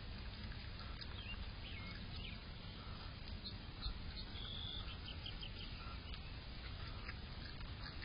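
Outdoor ambience: a steady low hiss of wind and background noise with faint bird chirps scattered through it, and a soft thump about four seconds in.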